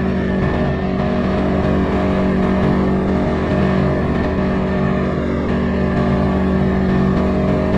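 CFMoto ATV engine running at a steady speed while being ridden.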